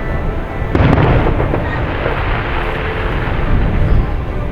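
Fireworks display: a sharp bang about a second in, then continuous rolling booms and rumble from shell bursts.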